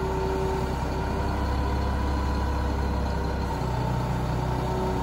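Boom truck's engine running steadily, with a steady high whine over a low rumble. A deeper hum joins about three and a half seconds in.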